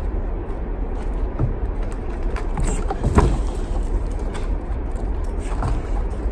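Steady low rumbling noise with a few brief knocks, the loudest about three seconds in.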